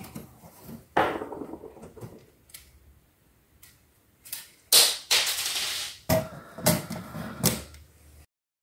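Cover panel of a homemade switching power supply being unscrewed and lifted off its case: scattered knocks and clunks, with a scraping slide about five seconds in. The sound cuts off suddenly near the end.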